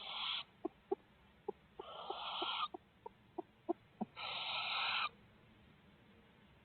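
Barred owlets giving raspy, hissing begging calls: three drawn-out rasps a couple of seconds apart, with faint short ticks between them.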